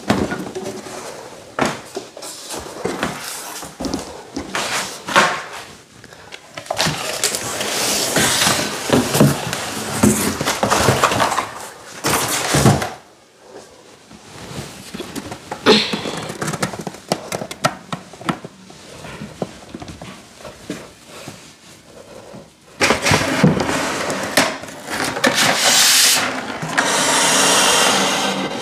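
IKEA flat-pack desk panels being handled and fitted together: wooden boards knocking and thudding, with stretches of scraping and rubbing as parts slide against each other. A longer scraping stretch comes near the end.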